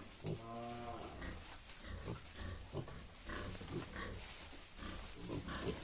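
Pigs grunting in short, irregular sounds, with one brief pitched call in the first second.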